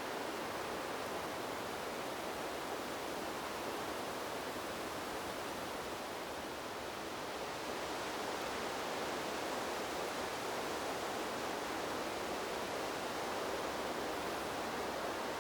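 Wind blowing through trees, a steady rush of rustling leaves that eases slightly about six seconds in and picks up again a couple of seconds later.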